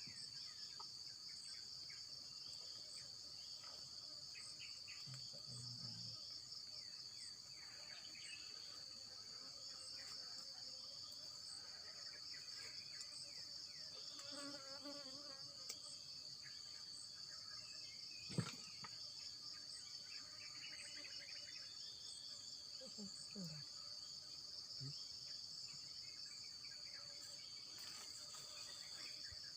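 Steady high-pitched insect chorus: a continuous fine trill, with a fainter short chirp repeating a little more than once a second. One sharp click about eighteen seconds in.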